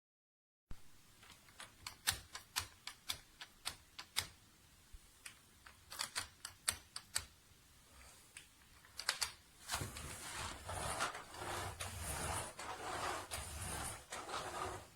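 Irregular sharp clicks and taps, a few a second, like typing or plastic being handled. From about ten seconds in, a steady rough rustling noise joins, with clicks still through it.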